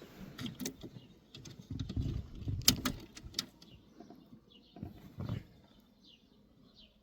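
Hands handling small plastic and rubber parts in a car's gear-shifter console: sharp clicks, rubbing and a couple of light knocks as the indicator bulb is twisted and pulled from its socket. The clicks are loudest in the middle, and two soft thuds come near the end.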